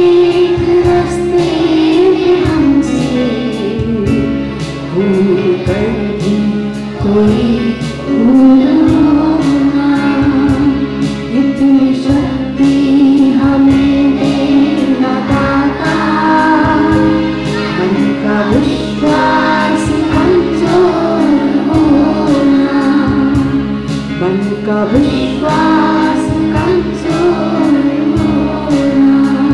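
A Hindi devotional prayer song led by a woman singing into a microphone, with children singing along, over accompaniment with a steady beat.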